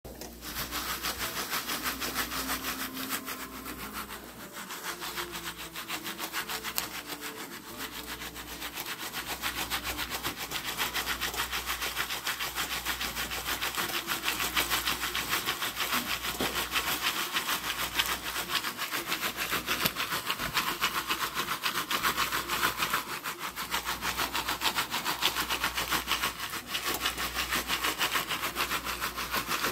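Jiffy Pop aluminium pan being shaken back and forth on an electric coil burner: a steady, fast scraping of the pan's base over the coil.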